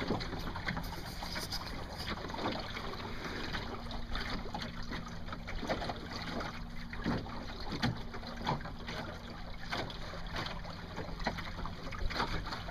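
Water splashing and lapping irregularly against the hull of a Welsford Navigator sailboat under way, with wind on the microphone.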